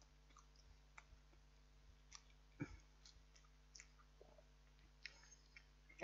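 Near silence, with a few faint scattered clicks and small knocks.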